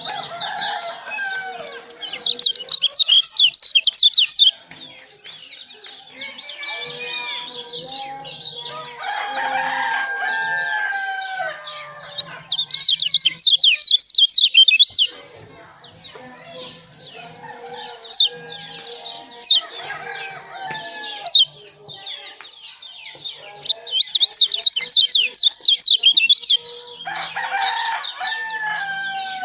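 Kecial lombok songbird song used as masteran: fast, high trilling phrases about two to three seconds long, three times, with scattered chirps and lower sweeping call notes between them.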